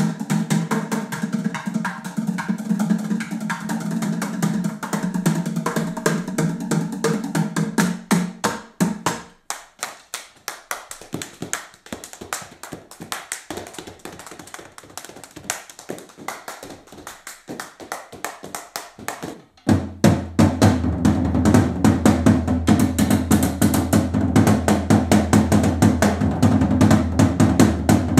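Drums played with sticks in a driving groove over a low bass line. About nine seconds in the groove drops out and leaves only sparse, quick stick taps. About twenty seconds in the full groove with the low bass comes back in.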